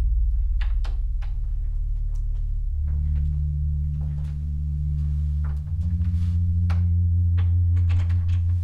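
Film score: low, sustained droning tones that shift to new notes about three seconds in and again near six seconds, with faint scattered clicks over them.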